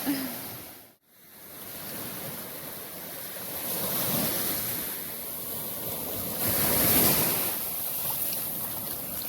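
Ocean surf washing onto the beach, with wind on the microphone. The sound cuts out briefly about a second in, then builds as waves break, the loudest near the end.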